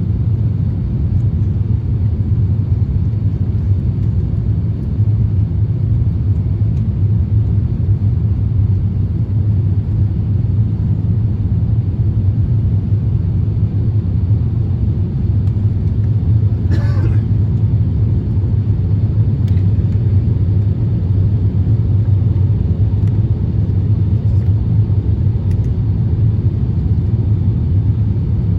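Steady low rumble of an Airbus A350-1000 cabin, with engine and airflow noise from its Rolls-Royce Trent XWB engines. A brief sharp noise cuts through once, about seventeen seconds in.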